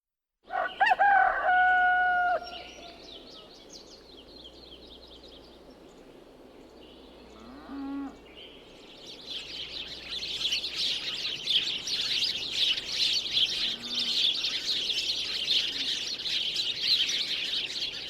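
A rooster crows once, loud, near the start. Faint chirps follow, then a short low call a little before halfway. From about halfway, many small birds chirp densely.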